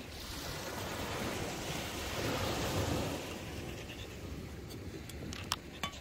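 Small surf breaking and washing up a sandy beach, a steady rush that swells about two seconds in and then eases. Two short, sharp clicks near the end.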